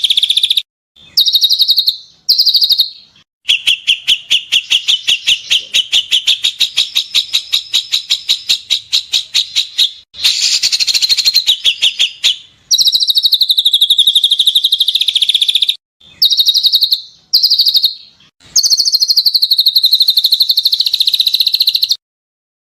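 Harsh songbird chatter from a bird-training (masteran) recording. Rapid, shrill, scratchy notes come in spurts of one to three seconds that break off abruptly, with one longer run of about eight to ten notes a second in the first half.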